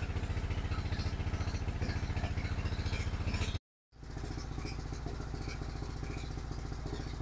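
Engine of a brick-moulding machine running steadily with a fast, even chugging beat. The sound cuts out for a moment about halfway through, then carries on.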